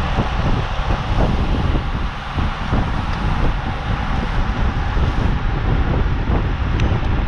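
Wind buffeting the microphone of a cyclist riding at race speed: a steady, heavy rumble with an even rush of air and road noise over it, and a brief tick near the end.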